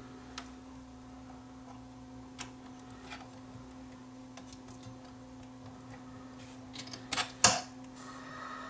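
Small clicks and taps of fingers working a synthetic capstan belt around the motor pulley inside a NAD 6155 cassette deck's tape mechanism. A few single ticks come first, then a quick run of sharper, louder clicks near the end.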